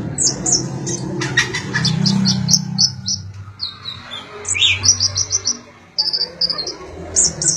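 Kolibri ninja (konin), a small sunbird, singing a fast, varied run of short, sharp, high-pitched chirps and trills, with a low background rumble underneath.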